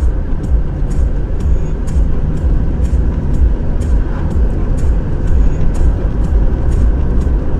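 Road noise inside a moving car's cabin, picked up by a dashcam microphone: a steady deep rumble of engine and tyres, with faint sharp ticks a couple of times a second.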